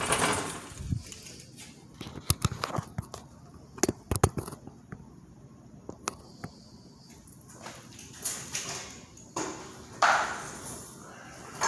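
Scattered light clicks and knocks from extension cords and a plastic power strip being handled and strapped down, with a brief rustle near the end.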